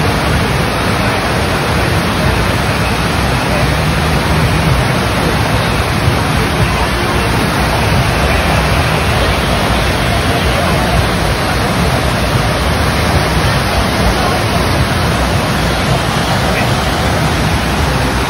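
Steady, loud rush of water from an artificial sheet-wave surf machine, with water pumped up the padded slope in a continuous flow.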